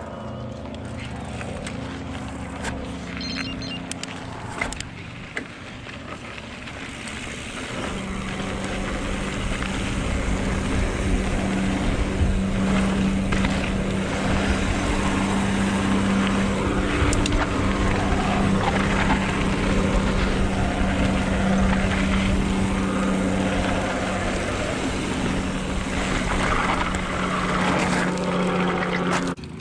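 Mountain bike ride recorded up close: wind rushing over the microphone and tyres rolling on dirt trail, with a steady drone that comes in about a quarter of the way through and grows louder as speed builds, then cuts off suddenly near the end.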